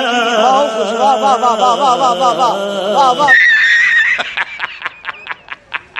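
A man singing in a wavering, ornamented style, cut off about halfway through by a man's loud laughter: a high wheezing note, then quick repeated 'ha's at about five a second.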